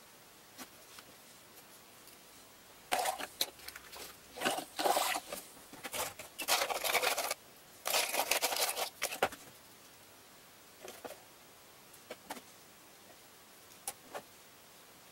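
Rummaging through a plastic bag of paint tubes: several seconds of rustling and rattling, then a few light taps as a tube is set down on the table.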